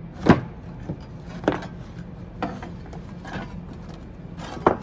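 A screwdriver and a putty knife knocking and scraping on the charred ceramic fire coating of a test plate and the workbench under it: about five irregular sharp knocks, the loudest just after the start and near the end.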